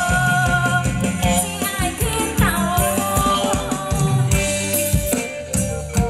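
Live band playing Thai ramwong dance music with a steady drum beat under a melody.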